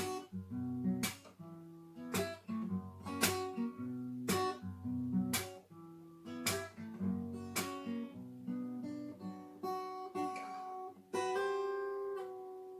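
Acoustic guitar playing slow chords, one struck about every second, ending on a final chord that rings out and fades.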